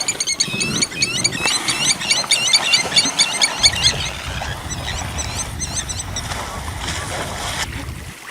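A pack of African wild dogs twittering: rapid runs of short, high, bird-like chirps, thinning out about halfway through, over a steady low rumble.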